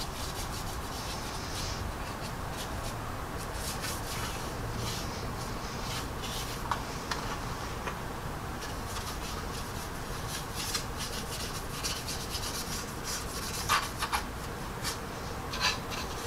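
Paintbrush scrubbing a wet clay-based panel line wash over the surface of a plastic scale model jet: a steady soft rubbing with light scratchy strokes, and a few small clicks near the end.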